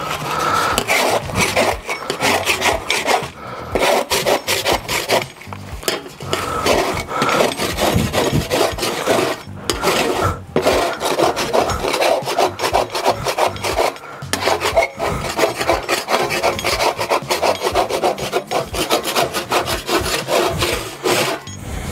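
Metal scraper blade scraping hardened, baked-on grease off a pellet grill's metal grease drip plate in quick repeated strokes, with a few brief pauses.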